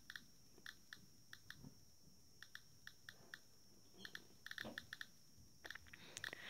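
GMC-320 Plus Geiger–Müller counter clicking faintly at random, one short tick per detected count, with the americium-241 source from an ionizing smoke detector held next to it. The ticks come more often in the last couple of seconds as the count rate rises above background.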